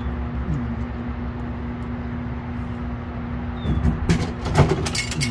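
A steady low drone, then a quick run of clunks and rattles about four seconds in, fitting a can of Diet Pepsi dropping through a Dixie Narco vending machine into its delivery port.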